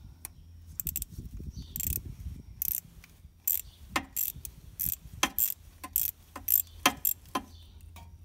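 Socket ratchet clicking in short, uneven strokes, about one or two clicks a second, as a homemade notched deep socket turns a broken tap out of a Chevy 454 cylinder head's exhaust manifold stud hole, the tap nearly out.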